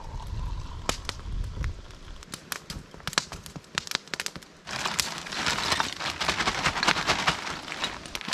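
Wood campfire crackling and popping, with many sharp snaps. About five seconds in it turns into a louder, denser crackle as the fire flares and throws sparks.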